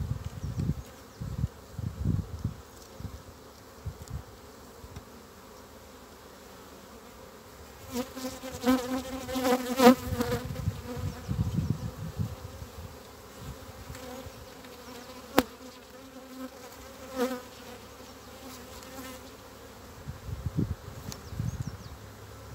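Honeybees buzzing around an open hive, the buzz swelling loudest about eight to ten seconds in and again briefly later. A single sharp click comes near the middle, and low rumbling bumps at the start and near the end.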